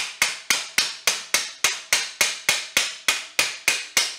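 Hammer blows, about three or four a second at an even pace, striking a socket held against a stuck swing arm pivot bolt to drive it out through a Honda CRF450R's engine cases. Each blow is a sharp metallic clink that rings briefly. The bolt is hung up in the cases by built-up junk on it.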